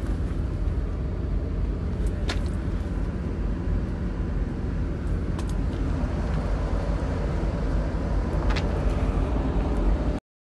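A steady, loud low engine rumble with a few short clicks, cutting off abruptly near the end.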